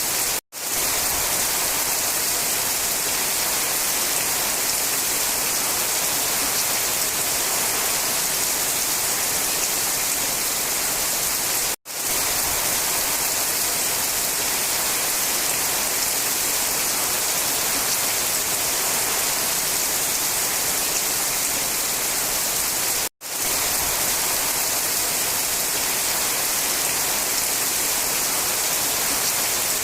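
Steady rain falling in a forest, an even hiss strongest in the high range. It cuts out for an instant three times, about every eleven seconds.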